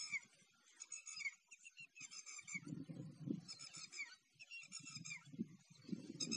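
Small birds chirping in short repeated calls, roughly once a second. From a little under halfway in, low crunching and rustling as a cow tears and chews dry grass.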